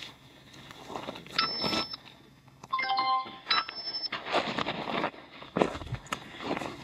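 Electronic beeps from a GNSS survey receiver's controller: two short beeps about two seconds apart, with a brief multi-note chime between them. Footsteps crunch on dry, stony soil throughout.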